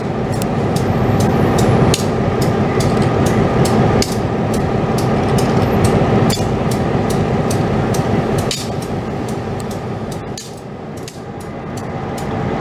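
Diesel switcher locomotive idling at close range: a steady engine drone with a sharp ticking clatter at about three ticks a second.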